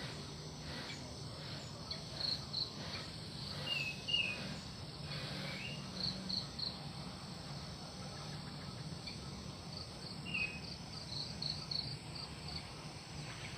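Prenjak (prinia) calling: several quick series of short, high, repeated notes, mixed with a few brief slurred chirps.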